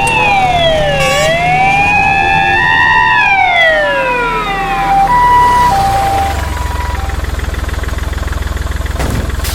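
Japanese ambulance siren sounding its two-note hi-lo 'pee-po' call, with a second siren wailing over it that slides down, back up and down again. From about six seconds in, a low fast-pulsing rumble like an idling engine runs underneath.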